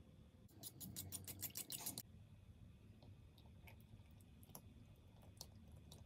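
Rapid clicking of a utensil whisking liquid against a ceramic bowl for about a second and a half, followed by a few faint scattered clicks while the mixture is poured.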